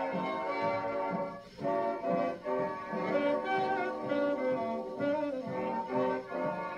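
1940 swing dance band playing a full ensemble passage, with trumpets and trombones over saxophones and rhythm section. The phrases are short and accented, with a brief break about a second and a half in. It is played back from a 78 rpm shellac record.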